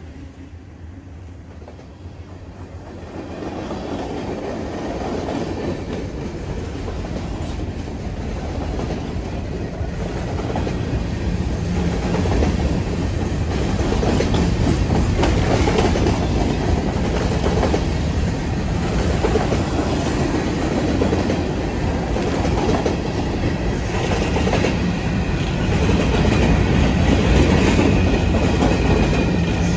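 Freight train of covered hopper cars rolling past close by: a steady rumble of steel wheels with rhythmic clickety-clack over the rail joints, growing louder over the first few seconds. A faint high squeal creeps in near the end.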